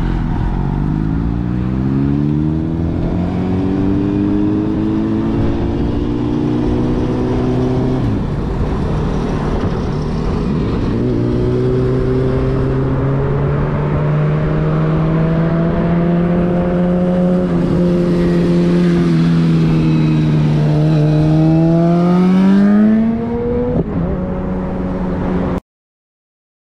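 A vehicle engine accelerating, its note rising over the first several seconds, holding steady through the middle, then climbing sharply again before the sound cuts off abruptly near the end; heard from inside a moving car, with road noise underneath.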